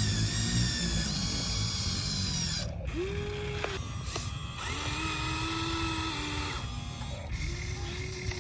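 Huina RC excavator's small electric motors whining in short spurts of one to two seconds. Each whine rises in pitch as it starts, then holds steady before stopping, as the machine's functions are worked.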